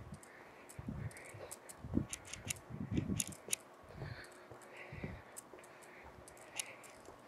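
Footsteps on a concrete sidewalk: dull thuds about once a second, with light clicking and scuffing of the shoes between them.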